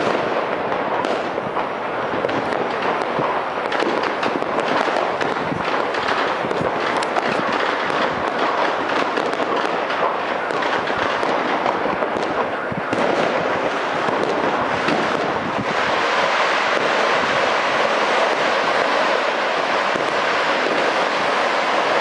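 Fireworks and firecrackers going off all across a city at once: a dense, unbroken crackling of countless pops and bangs. For the last few seconds the separate bangs merge into a steadier, even crackle.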